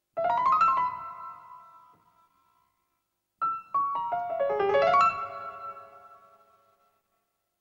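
Solo piano music: a short phrase that dies away, a pause of over a second, then a second, longer phrase that fades out.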